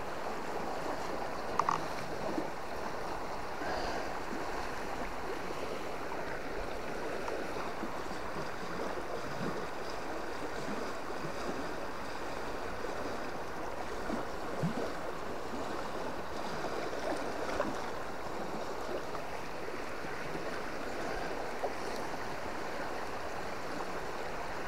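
River current flowing steadily, an even rush of water, with a few faint clicks.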